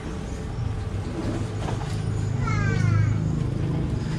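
A low, steady vehicle engine rumble that swells to its loudest about three seconds in, with one short falling call from a bird about two and a half seconds in.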